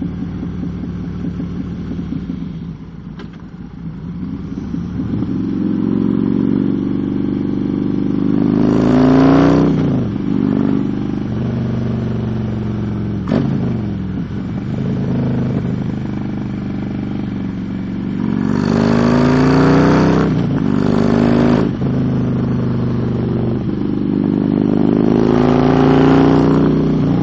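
Motorcycle engine on the move, revving up through several accelerations, its pitch rising and then dropping sharply at each gear change, with a rush of wind noise during the harder pulls.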